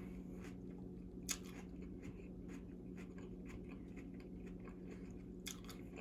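Close-miked chewing of a grilled chicken salad: soft, faint mouth clicks and crunches of raw vegetables, with a louder crunch about a second in and another near the end. A steady low hum runs underneath.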